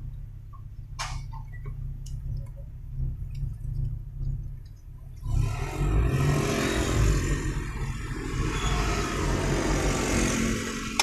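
Toyota Kijang Innova engine running, heard from inside the cabin as a low steady rumble with a few clicks, its misfire just repaired. About halfway through a louder rushing noise sets in as the car gets moving.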